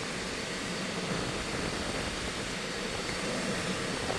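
Steady, even rushing background noise with no handling sounds.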